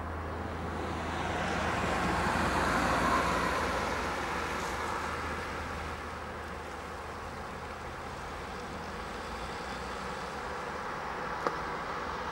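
Class 58 steam locomotive 58 311 working hard with a train, heard from far off as a steady noise with no distinct exhaust beats, which swells between about one and five seconds in; wind rumbles low on the microphone.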